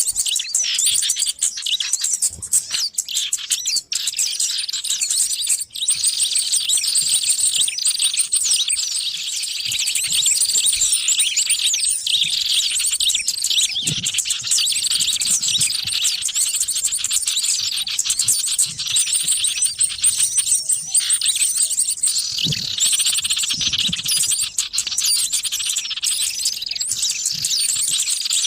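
A dense, unbroken chorus of many small birds chirping and twittering together at a high pitch, the noisy flock sound used as a lure recording to draw wild small birds in.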